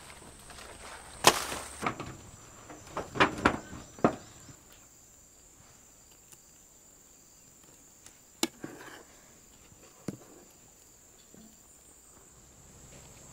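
A machete chopping into a banana plant's trunk: about five sharp chops in the first four seconds, the loudest a little over a second in. After that it is much quieter, with a steady high insect buzz and two faint clicks.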